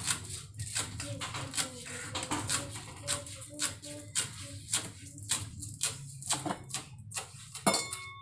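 Kitchen knife chopping fresh green herbs on a wooden cutting board: a steady run of sharp chops, about two to three a second.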